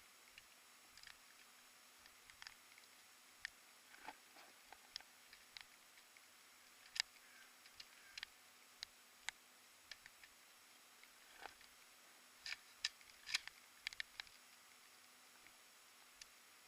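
Near silence broken by scattered faint, short clicks and taps, with a small cluster of them about twelve to fourteen seconds in.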